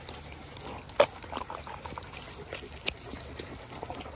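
Dogs taking and chewing crumbly dried treats from a hand: wet mouth and chewing noises, with two sharp snaps, one about a second in and one near three seconds.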